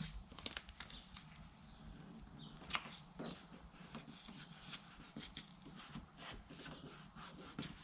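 Blue painter's tape being pulled off the roll, torn and pressed onto a fiberglass console: a string of faint crackles and rustles over a steady low hum.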